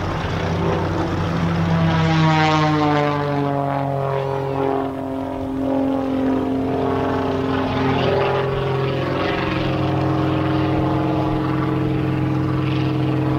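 Douglas Skyraider's Wright R-3350 18-cylinder radial engine and propeller running at low power as the aircraft taxis. The pitch sags a few seconds in, then holds steady.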